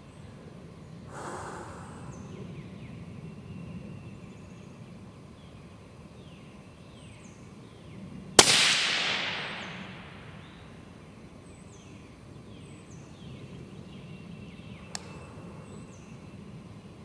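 A single suppressed rifle shot about eight seconds in, from a 10.5-inch 5.56 AR upper fitted with an AAC 762-SDN-6 suppressor: a sharp crack followed by a report that fades over about a second and a half. A faint click comes near the end.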